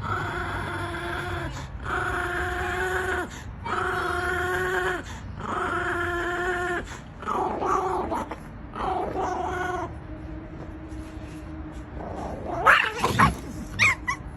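A dog vocalising in long, drawn-out whining notes, about five in a row, then shorter ones. Near the end come a few loud, sharp yips.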